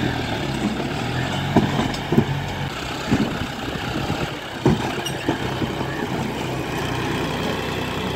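John Deere tractor's diesel engine running under load as it pulls a heavily loaded soil trailer over rough ground, with several sharp knocks and clunks, the loudest about two seconds and about four and a half seconds in.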